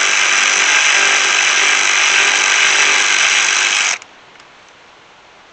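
Cordless electric ratchet running steadily, spinning a tightly secured 10 mm bolt out of the charcoal canister mount, then stopping abruptly about four seconds in.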